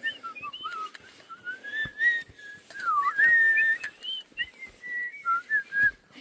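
Person whistling by mouth, a wandering tune of high, thin notes that glide up and down with short breaks between phrases.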